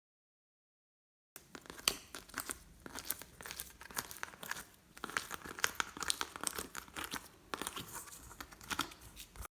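Glossy slime being squeezed and stretched by hand, with dense crackling and popping clicks. It starts a little over a second in and cuts off abruptly near the end.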